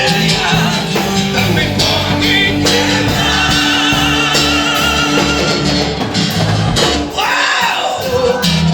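Gospel band music: an instrumental passage between sung lines, with guitar, drums and a wavering melody line over it. The bass drops out briefly near the end.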